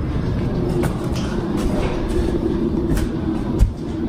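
Steady low rumble of a handheld camera being carried while walking, with a few sharp knocks and footfalls along the way, the loudest about three and a half seconds in.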